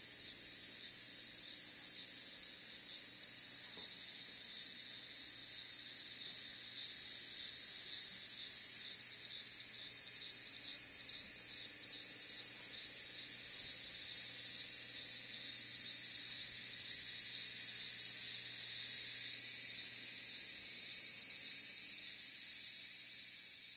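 A dense insect chorus: a steady, high-pitched shrill drone with a fast flutter, slowly growing a little louder, then beginning to fade near the end.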